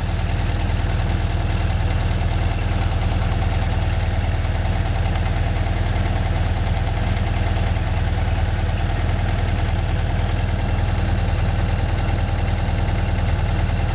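1978 Volkswagen bus's air-cooled 2-liter fuel-injected engine idling steadily with its usual sound, an old engine with over 300,000 miles on it.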